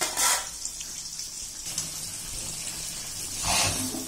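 Marinated chicken sliding from a metal bowl into hot oil in a kadai, the oil sizzling steadily with two louder bursts, one right at the start and one about three and a half seconds in, as pieces drop in.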